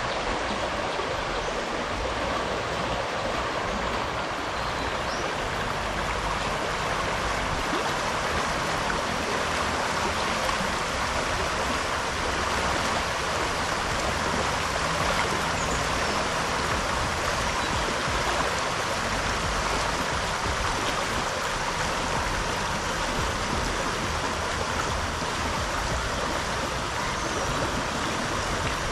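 Steady rush of river water flowing past the bank.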